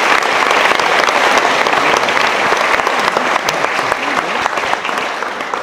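Audience applauding: a dense, steady round of hand-clapping that begins to die away near the end.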